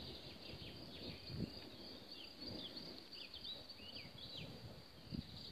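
Small birds chirping, short high notes several times a second, over a faint low rumble, with a couple of soft low thumps.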